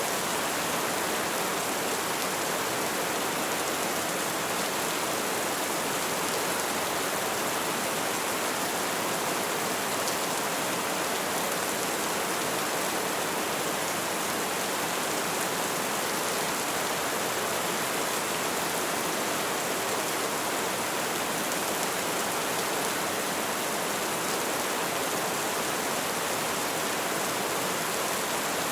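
Heavy rain falling steadily, a dense even hiss with no thunderclaps.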